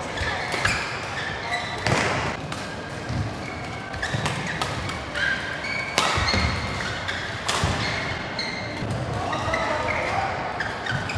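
Badminton rackets striking a shuttlecock in a doubles rally: several sharp hits at irregular intervals, echoing in a large hall. Between the hits come short high squeaks of shoes on the court mat.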